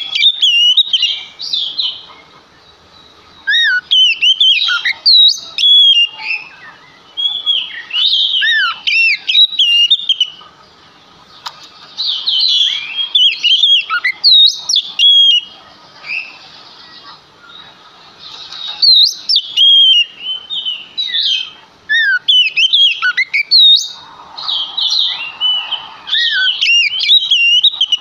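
Oriental magpie-robin in full song: loud, high, rapidly rising and falling whistled phrases of a few seconds each, about six of them, with short pauses between.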